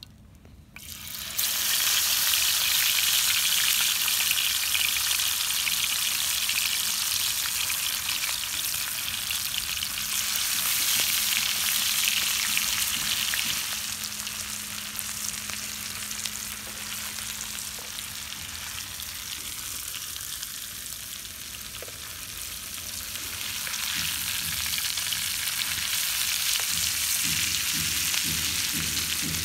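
Masala-coated trigger fish going into hot oil in a frying pan: the oil breaks into a loud, steady sizzle about a second in, eases off in the middle and picks up again. Near the end a metal spatula scrapes and turns the fish in the spitting oil.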